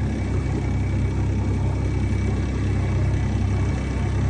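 Outboard motor running steadily as the boat moves along, with a continuous rush of water and wind over it.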